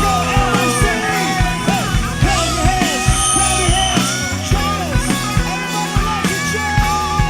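Upbeat rock-style praise song music with a steady drum beat and a wavering melodic lead, no lyrics sung.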